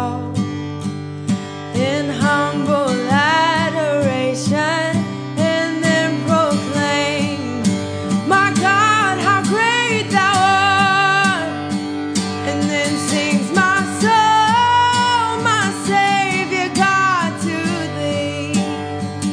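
A hymn sung by a solo voice with vibrato over acoustic guitar, continuing without a break.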